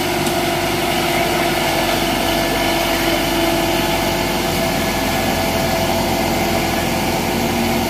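Kubota rice combine harvester's diesel engine running steadily as the tracked machine struggles and fails to climb a steep, muddy bank.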